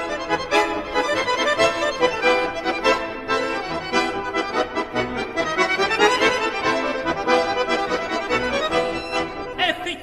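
Accordion playing a traditional Russian folk tune, with steady rhythmic chords and melody.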